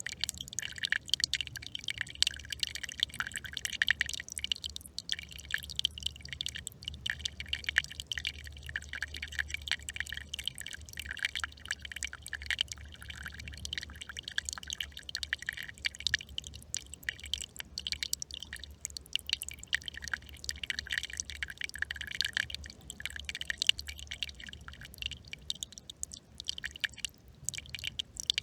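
Small brook trickling and babbling, a constant quick run of small splashes and drips over the water's steady flow.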